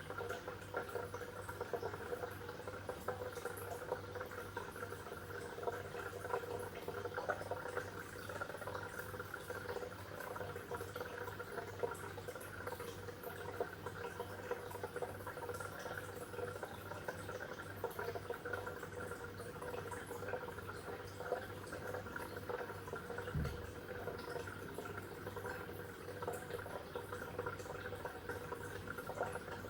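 Aquarium water bubbling and trickling steadily over a low, constant hum, with one brief low knock about two-thirds of the way through.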